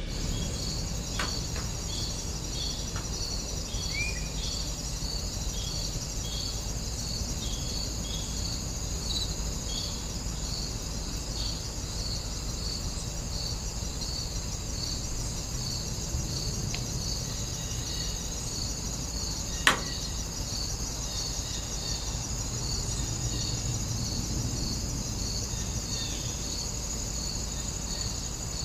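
Insects chirping steadily: a continuous high buzz with a repeated pulsed chirp a little over once a second. There is a single sharp click about twenty seconds in.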